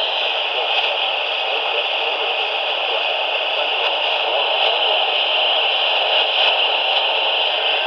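Steady radio static: an even hiss of noise from a radio receiver with no clear signal, with no alert tones or voice in it.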